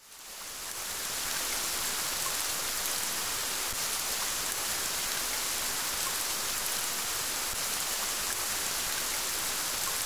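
Rain falling steadily, fading in over about the first second.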